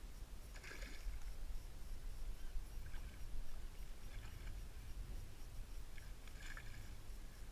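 A hooked ide splashing and thrashing at the water's surface while being played on a fly rod. There are two louder splashes, about a second in and near the end, with fainter ones between, over a steady low rumble.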